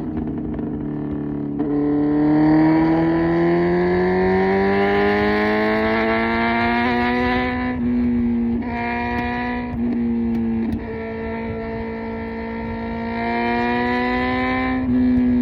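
Kawasaki Z900's 948 cc inline-four through an SC Project exhaust, accelerating hard with a steadily rising note for about six seconds. The note then breaks off briefly three or four times before settling into a steady, slowly climbing pitch.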